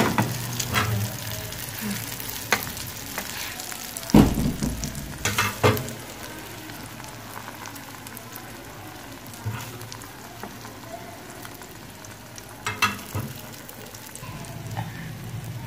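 Beaten egg mixed with tomato-chilli masala sizzling steadily in hot oil in a frying pan. A metal spatula knocks and scrapes against the pan several times, loudest about four to six seconds in and again near the end.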